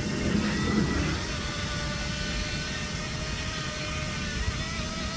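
Motor of a small remote-control boat whining steadily on the water, its pitch wavering slightly as it runs.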